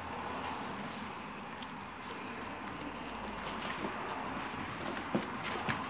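Steady background noise, with a couple of short, sharp knocks near the end.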